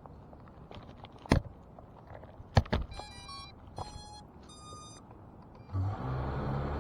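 A few sharp clicks, then a series of short electronic beeps, then a low steady hum starting near the end.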